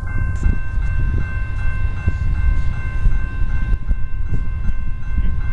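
Railroad crossing bell ringing rapidly with a steady, even rhythm over a loud, steady low rumble.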